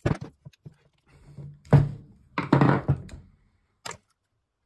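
Chevy TBI throttle body knocked and rubbed against a workbench as it is handled and turned over: a few sharp knocks at the start, louder thunks with scraping around the middle, and one more click near the end.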